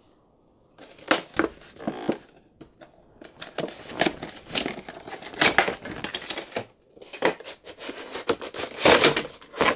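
A cardboard toy box with a clear plastic window being opened and handled: irregular rustling, crinkling and scraping of cardboard and plastic packaging, with sharp clicks, starting about a second in.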